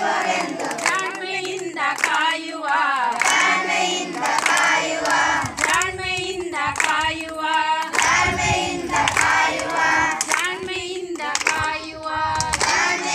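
A group of voices singing a Kannada song, with sharp hand claps among the singing.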